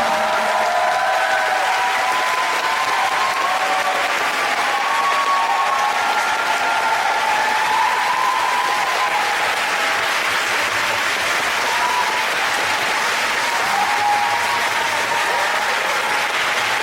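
Audience applauding steadily after a song ends, with a few voices calling out over the clapping.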